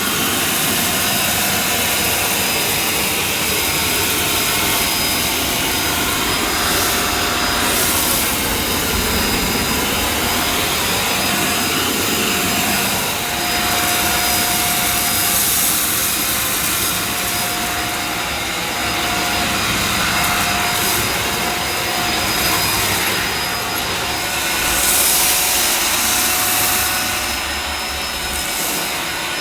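EGL 600-watt mains-powered handheld vacuum cleaner running loud and steady with a motor whine, picking up dirt from a hard floor; the hiss swells and eases a little now and then as the nozzle moves.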